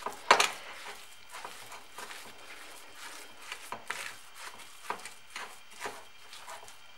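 Wooden spoon stirring and mashing a thick, coarse paste of ground pork cracklings in a bowl: a run of soft, irregular scrapes and taps, the sharpest about a third of a second in.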